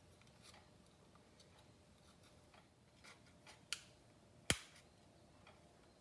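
Small screwdriver prying at the seam of a plastic starter-switch housing: faint scraping and light ticks, with two sharp plastic clicks a little past the middle, the second the loudest.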